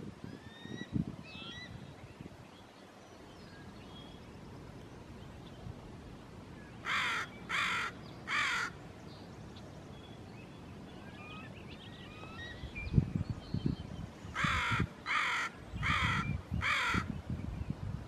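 Northwestern crow (the Pacific-coast subspecies of the American crow) cawing: a run of three short caws about seven seconds in, then a run of four evenly spaced caws about seven seconds later. Low thumps and rumbles, the loudest just before the second run, come with the later caws.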